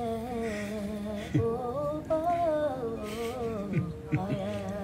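A man's voice humming and softly singing a slow R&B melody, with long held notes that waver and glide.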